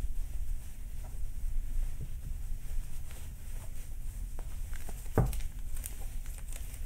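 Cotton kitchen towel being folded and handled on a countertop: soft fabric rustling and light pats, with one sharper click about five seconds in.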